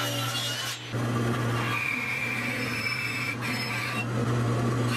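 A table saw ripping a 2x6 board for about the first second, then a bandsaw running and cutting along a pine board. A steady motor hum runs under both, with a higher whine through the middle.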